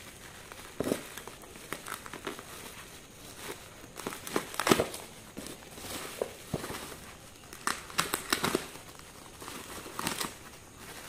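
Bubble wrap packaging crinkling and tearing as a parcel is cut open with a knife and pulled apart by hand. Irregular rustling with sharper crackles, the loudest about halfway through and again after about eight seconds.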